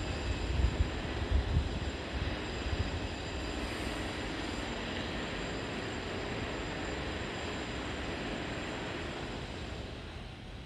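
Steady rushing background noise, with irregular low buffets of wind on the microphone during the first three seconds.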